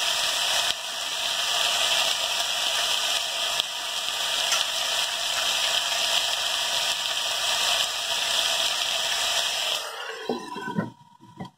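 Chicken pieces sizzling in oil in a metal pot, a steady hiss. About ten seconds in, a metal lid is set on the pot with a couple of light knocks, and the sizzle cuts off sharply.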